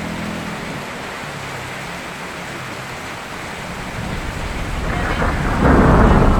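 Steady rain falling, with a low rumble of thunder that builds about five seconds in and is loudest near the end.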